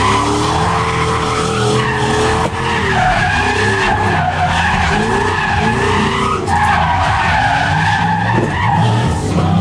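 SN95 Ford Mustang drift car sliding with its engine under load and its tires squealing almost without a break, the pitch of the squeal wavering as the slide changes. Heard from inside the stripped cabin.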